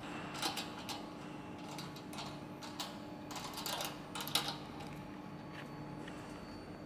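Irregular light clicks and knocks of small metal pipe fittings and a clamp being handled and fitted by hand at a tank outlet, the sharpest click a little past the middle, over a steady low hum.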